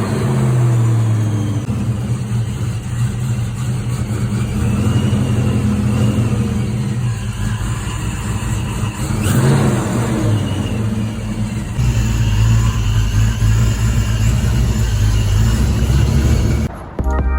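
Fox-body Mustang's 5.0 V8 running, with a couple of brief rises and falls in revs. The owner says the engine has been running rich and doesn't sound like it should.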